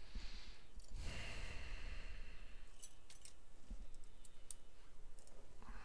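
A breathy exhale, then several faint, sharp clicks of small metal dental instruments, such as the screwdriver against the implant parts.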